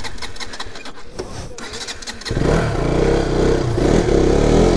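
Clicking and rattling, then about two seconds in a motorcycle engine fires up and revs, its pitch rising and falling.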